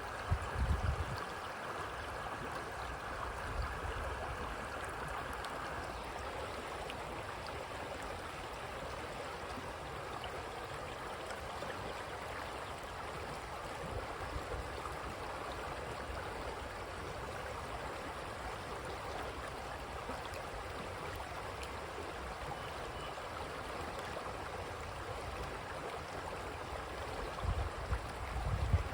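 Creek water running and babbling steadily over its bed. Brief low rumbles about a second in and again near the end.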